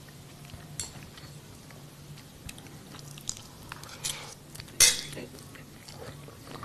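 Scattered light clicks and clinks over a faint low hum, with a sharper click about five seconds in.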